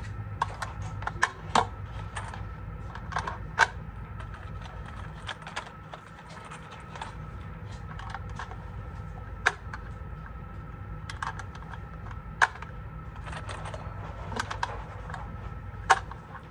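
Irregular sharp clicks and clacks, several close together, over a steady background hum.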